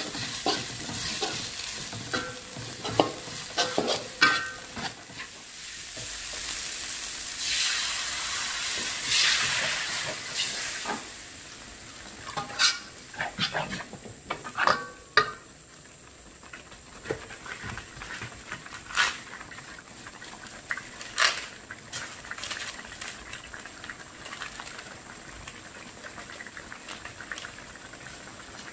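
Turmeric spice paste sizzling in a wok while a spatula stirs and scrapes the pan, giving sharp scraping clicks. About seven seconds in a louder hiss lasts a few seconds as liquid goes in and the paste turns to a bubbling sauce. After that the sizzle is softer, with occasional scrapes.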